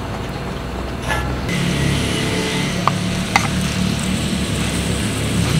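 Thin slices of beef sizzling in butter on a hot grill pan over a portable gas stove. The sizzle starts about a second and a half in, over a steady low rumble. A wooden spatula taps twice against the pan near the middle.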